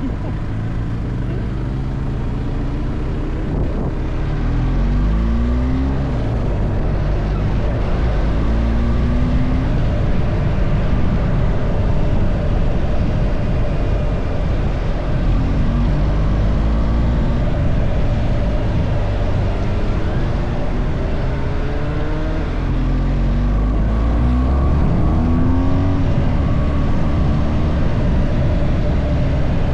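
Car engine and road noise while driving, with a steady low rumble. The engine pitch rises repeatedly as the car accelerates, around 2, 8, 15 and 24 seconds in.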